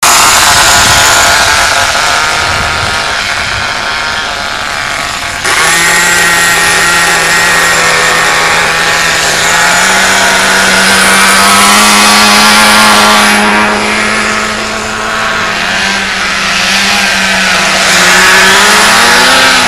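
Nitro RC buggy engines, small two-stroke glow engines, running with a steady high buzz that rises in pitch in quick glides near the end as the throttle opens. The sound changes abruptly about five seconds in.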